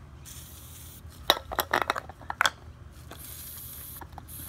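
Aerosol can of paint stripper spraying in short thin hisses, one near the start and two toward the end, with a run of sharp metallic clinks in between. The weak spray is that of a can running nearly empty.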